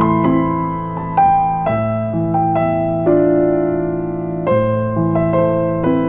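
Slow, gentle piano music: single melody notes and chords over low held bass notes, each note struck and left to ring and fade.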